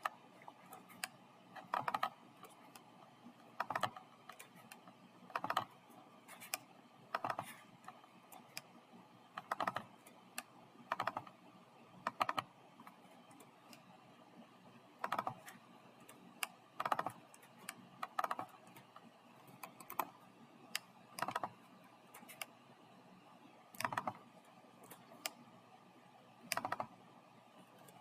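Computer keyboard typing in short bursts of a few keystrokes, recurring every one to two seconds.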